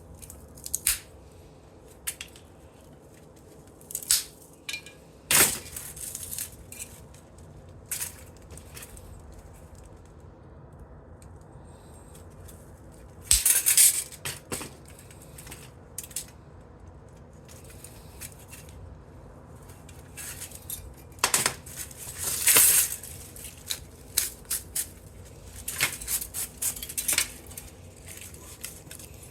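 Small pieces of scrap metal clinking and clattering as they are handled and dropped onto a pile. The clicks are scattered, with two louder bouts of clattering about halfway through and again about three quarters of the way through.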